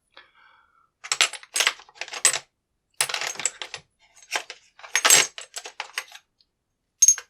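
Small metal locksmith tools clinking and rattling together in several short bursts as they are rummaged through in a search for a hollow follower of the right size.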